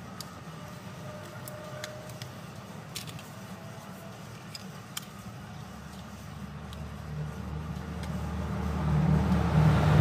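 Small sharp clicks of a keypad mobile phone's plastic housing and display being handled and fitted together, over a low steady hum. In the last three seconds a low rumble swells and becomes the loudest sound.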